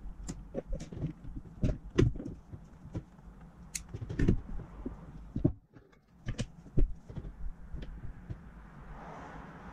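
Irregular light clicks and knocks as small metal airsoft gearbox parts and tools, a cylinder among them, are picked up and set down on a cutting mat. There is a short break in the sound about halfway through.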